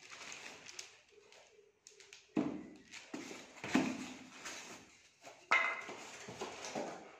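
Unboxing handling noise: polystyrene foam packaging and plastic wrap rubbing, rustling and knocking in several short bursts. There is also a brief steady tone a little over a second in.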